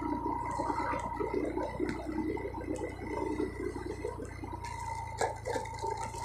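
Motorcycle ridden slowly on a wet brick-paved road: engine running steadily with a constant whine, and tyre noise on the wet paving.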